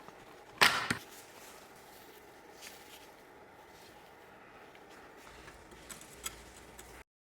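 One sharp knock, like a hard object striking, followed by a few faint clicks.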